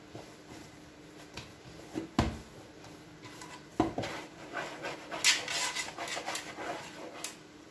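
Hands rubbing and scraping sticky semolina dough off the fingers into a mixing basin, a dry rasping run of rubs near the end. Two dull thumps come about two and four seconds in.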